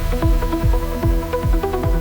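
Electronic dance music with a steady kick-drum beat, about three beats a second, under repeating synth notes.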